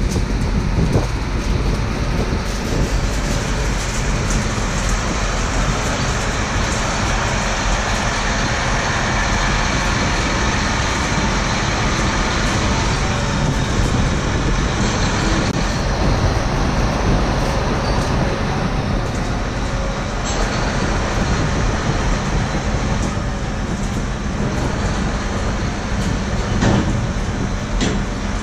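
Combine harvester running steadily, a loud continuous engine and machinery drone.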